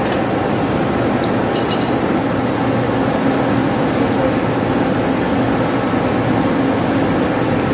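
Steady drone of running machinery in a pump room, with a few metallic clinks of wrenches on the pump's flange bolts about a second or two in, one of them ringing briefly.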